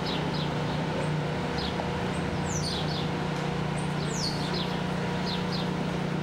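Birds chirping, with quick high chirps falling in pitch repeated every second or so, over a steady low hum.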